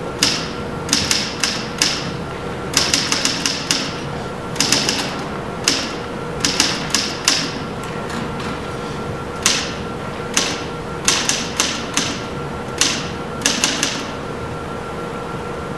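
Typewriter keys clacking in quick bursts of a few strokes with short pauses between, over a faint steady hum. The typing stops a couple of seconds before the end.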